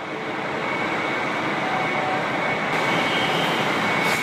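Electric commuter train running alongside a station platform: a steady rushing noise with a faint high whine.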